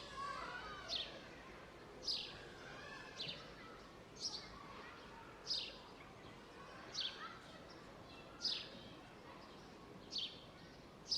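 A bird repeating a short, high, downslurred call about once every second or so, with fainter chirps of other birds and steady outdoor background noise underneath.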